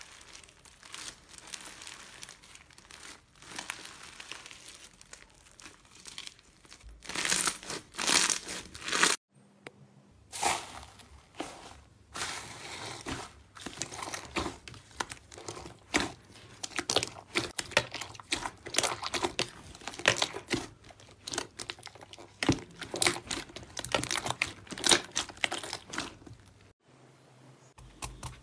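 Hands stretching a stringy pink slime, then squeezing and kneading a bowl of soft blue slime: a dense run of crackles, small pops and tearing sounds. It drops out briefly about nine seconds in and again near the end.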